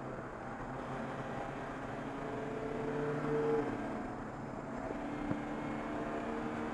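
Race car engine running under load, heard from inside the stripped, caged cockpit. It grows louder for about a second and a half and falls back about three and a half seconds in, and there is a single sharp click a little after five seconds.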